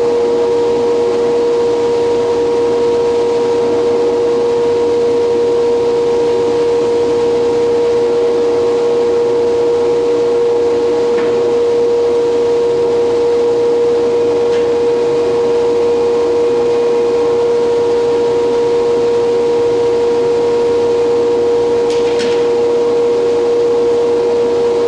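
Hydraulic wood-copying lathe and its dust extraction running steadily with no cut under way, a constant drone with a high hum. A few light knocks about midway and near the end as a bat billet is handled at the machine.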